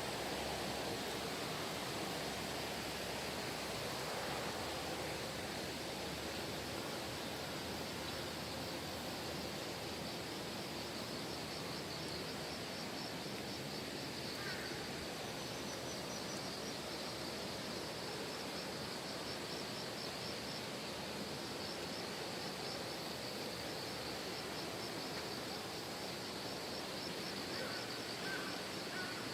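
Steady rush of a mountain valley stream flowing over rocks. A high, fast-pulsing trill joins about a third of the way in and carries on to the end.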